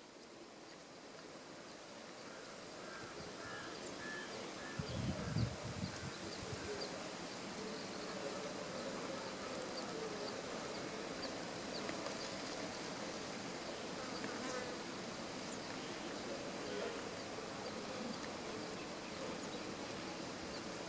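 Flying insects buzzing steadily in an open field, faint and slowly growing louder over the first few seconds, with a few faint bird chirps and one brief low thump about five seconds in.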